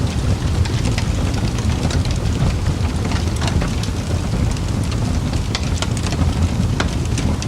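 Fireplace fire crackling: a steady low rumble of flames with scattered, irregular sharp pops and snaps.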